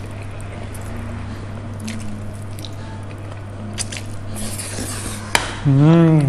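A man slurping and chewing a mouthful of pad thai rice noodles off chopsticks, with a hissy slurp about four seconds in. Near the end he gives a short appreciative "ooh" hum that rises and falls in pitch.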